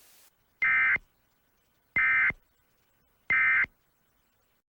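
Emergency Alert System end-of-message data bursts: three short, buzzy digital tones about a second apart, signalling that the alert message has ended.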